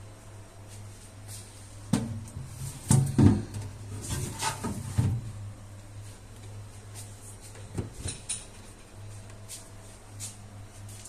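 Several knocks and clunks of a door and things being handled, most of them between about two and five seconds in and two more near eight seconds, over a steady low hum.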